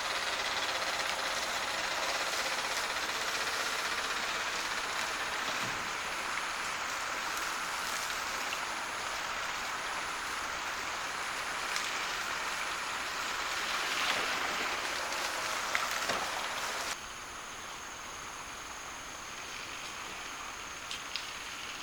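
Steady rushing outdoor noise, with a high insect call pulsing about once a second and a few light knocks. About 17 s in it cuts to quieter ambience carrying a steady high insect whine.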